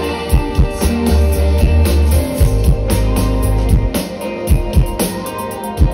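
Live pop-rock band playing an instrumental passage with no vocals: electric guitar, bass and drum kit. The heavy bass drops out about two seconds in, leaving drum hits and a drum fill under the guitar.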